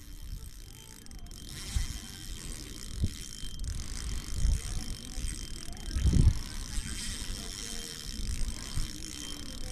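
Spinning reel's loose drag clicking in a fast ratchet as a hooked squid pulls line off the spool, with low thumps on the microphone, the largest about six seconds in.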